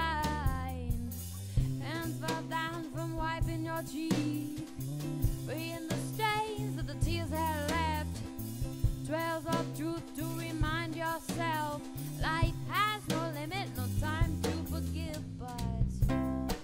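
Background song: a singing voice over bass and a steady drum-kit beat.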